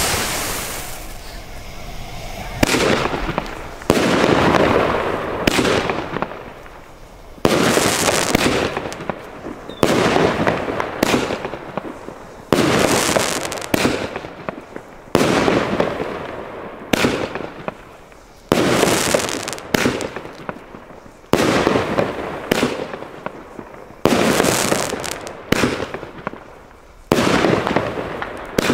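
Pyromult Hot Rod firework battery firing its shots in steady succession, about one every second or so, each a sudden bang with a tail that dies away before the next.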